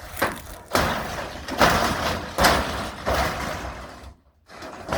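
Harsh scraping and banging from barn material being pulled and torn loose, in about five rough bursts roughly one a second, then a short lull near the end.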